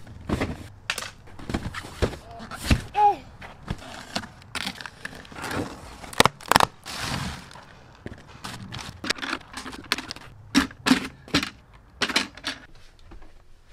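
Cardboard shipping boxes being handled and torn open, with rustling and a string of sharp knocks and thunks as the heavy lithium batteries are lifted out and set down on gravel.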